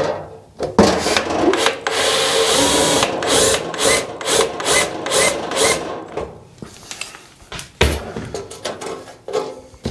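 Cordless drill drilling out a pop rivet in the earth terminal of a metal lightbox casing, running in pulsing surges for about five seconds and then stopping. A sharp knock follows near the end.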